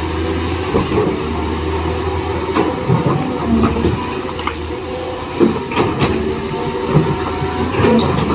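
Toy radio-controlled excavator's small electric motors whirring steadily, with plastic parts clicking and clattering at irregular moments.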